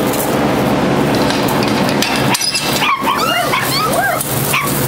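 Young puppies yipping and whining in short cries that rise and fall, several overlapping, starting about halfway through, over a steady background noise.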